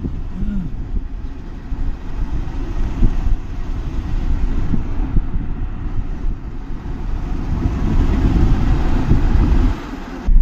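Engine and road noise heard from inside a moving vehicle: a steady low rumble that grows louder in the last few seconds and drops briefly just before the end.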